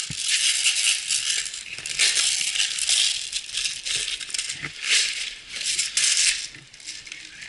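Airsoft magazine handled during a reload, its BBs rattling in repeated bursts of about a second each as it is shaken.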